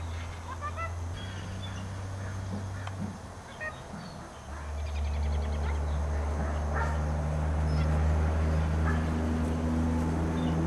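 German shepherd puppies playing, with short squeaky yips and whimpers scattered through, over a steady low rumble that grows louder about halfway through.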